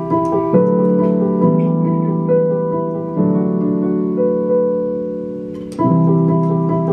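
Digital keyboard with a piano sound, played slowly in chords. A few quick repeated notes lead into chords that are held and left to fade, changing every second or two. A new chord about six seconds in brings the quick repeated notes back.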